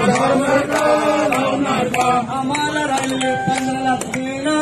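A group of voices singing a Hindu aarti hymn in unison, with long held notes and a sharp beat about twice a second.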